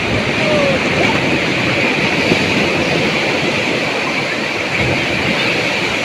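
Sea surf breaking and washing up the beach in a steady, loud rush.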